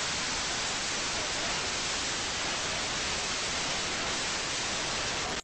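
Steady hiss of static, like white noise, at an even level with no change, cutting off abruptly near the end.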